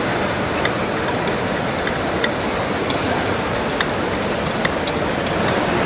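Steady hiss of steam from a large-scale live-steam model locomotive, with a few light clicks.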